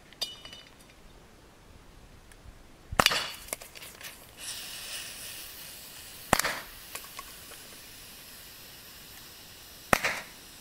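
Umarex Beretta 92 FS CO2 air pistol fired three times, about three and a half seconds apart. Each sharp pop is followed shortly by a lighter tap as the shot hits and knocks over a metal can.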